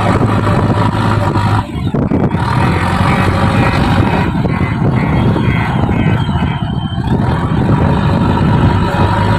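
Diesel engine of a JCB backhoe loader running while it loads soil into a trolley. The steady engine hum dips briefly about two seconds in and changes for several seconds, then settles back to its steady note near the end.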